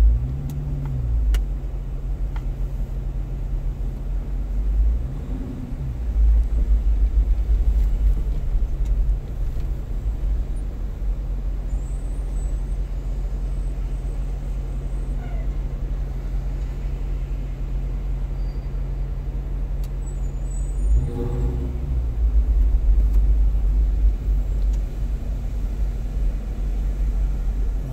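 Low, steady rumble of a car's engine and road noise heard inside the cabin while creeping through slow traffic. It swells briefly a few times, loudest about six seconds in and again about twenty-two seconds in, as the car moves forward.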